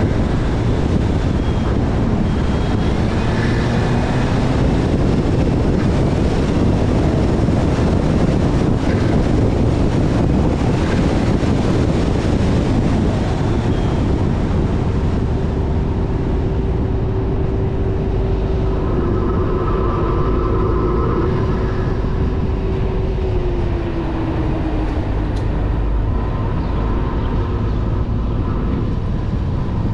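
Ford Focus RS Mk3's 2.3-litre turbocharged four-cylinder running as the car is driven, heavily mixed with tyre roar and wind noise. The engine note climbs in the first few seconds, holds steady for a stretch in the middle, then drops slightly.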